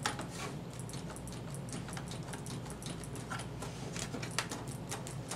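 Plastic clips and housing of a TV's rear cover clicking and creaking as the cover is flexed and worked loose by hand: a string of small, irregular clicks over a steady low hum.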